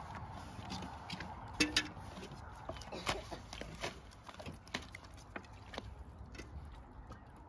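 A long thin wooden rolling pin clacking and knocking on a round wooden board as flatbread dough is rolled out thin and lifted on the pin. The knocks come irregularly, the sharpest a couple of times in the first three seconds, over a low steady rumble.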